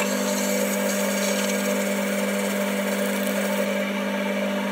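Workshop machine motor running at a constant speed, a steady whine with a hiss over it, stopping abruptly at the end.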